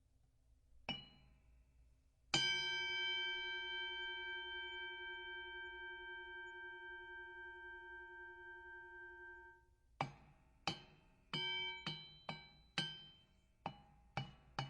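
Boxing ring bell. A short strike about a second in, then one strike left ringing for about seven seconds until it cuts off sharply. Then a quick run of strikes, about two a second.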